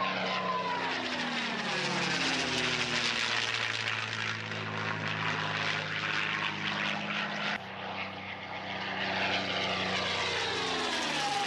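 P-51 Mustang's V12 piston engine and propeller passing close overhead, the engine note dropping in pitch as it goes by. About seven and a half seconds in the sound breaks off suddenly, then the aircraft closes in again and its pitch falls as it passes.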